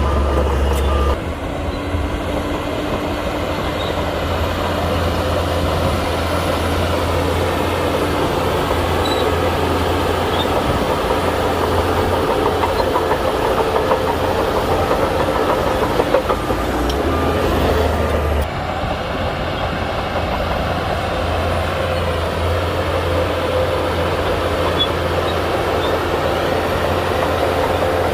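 Shantui crawler bulldozer's diesel engine running with a steady low drone, its steel tracks clanking and rattling as it works. The sound changes abruptly about a second in and again around eighteen seconds in.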